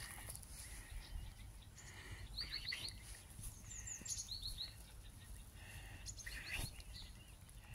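Faint outdoor background noise with small birds chirping: quick runs of three or four short, high, falling notes about two and a half seconds in, again around four seconds, and once more near the end.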